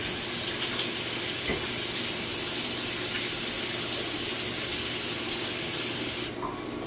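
Kitchen tap running in a steady stream into a stainless steel sink while hands are washed under it, shut off near the end.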